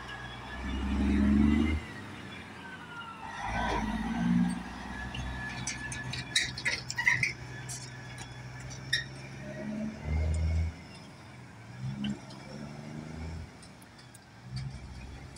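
Straight-piped Detroit Diesel Series 60 inline-six in a Freightliner Cascadia pulling away with a loaded trailer, its exhaust note swelling and dropping in several pulls as it accelerates off, loudest in the first two seconds and growing fainter as it moves away.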